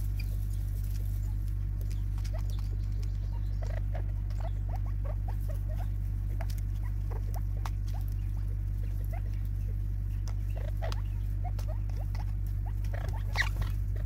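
Spurfowl pecking seed from a plastic feeder tub: a scatter of quick, irregular taps and ticks, with a louder clatter of pecks about a second before the end. A steady low hum runs underneath.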